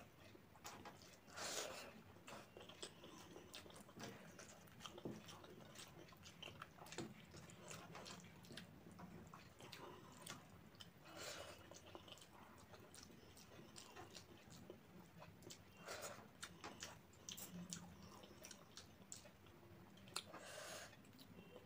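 Faint, close-miked eating sounds: small wet clicks and smacks of chewing and of fingers mixing cooked rice on a plate, with a few louder squelches scattered through.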